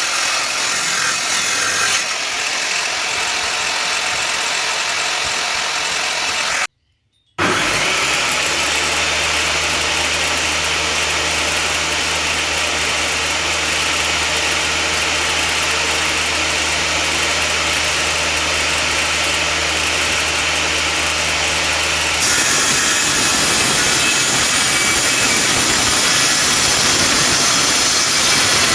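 Woodworking power tools running and cutting wood, in several separate stretches. There is a sudden break of silence about seven seconds in. After it comes a long stretch of steady motor hum, which changes to a different, rougher noise about two-thirds of the way through.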